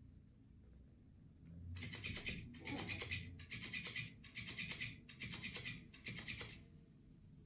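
Electric flopping fish cat toy running: its motor makes the plush fish flop, in a string of short buzzing bursts. The bursts start about two seconds in and stop near the end.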